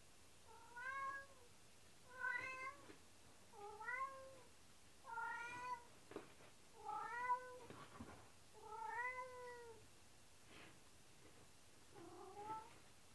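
A cat meowing about seven times in a row, each meow rising and then falling in pitch, with a longer pause before the last. These are the sad, lonely meows the cat makes when left alone, which its owners suspect come from separation anxiety.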